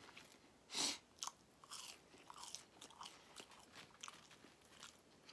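Close-up chewing of crunchy fried food, a crinkle-cut French fry, with one louder crunch a little under a second in and softer crackling crunches and mouth sounds after.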